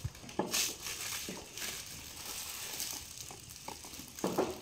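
Quiet handling sounds of skewering sausages by hand: scattered light clicks and rustles, with one louder short sound near the end.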